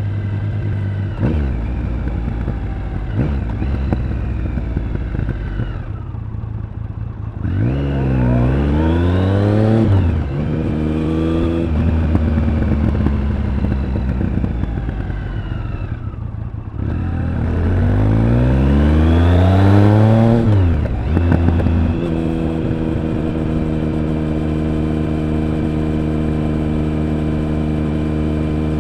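Triumph Speed Triple 1050's inline three-cylinder engine and exhaust on the move: the revs climb hard twice, each pull ending abruptly as the throttle closes, with a lighter falling note between them. Near the end it settles into a steady, even drone.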